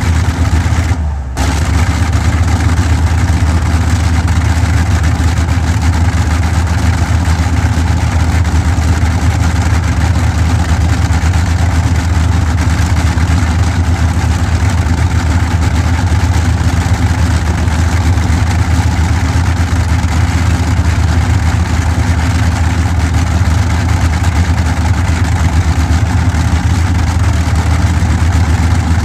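Bristol Hercules 14-cylinder sleeve-valve radial aero engine running steadily on a test stand, with a loud, even low drone. The level dips briefly about a second in.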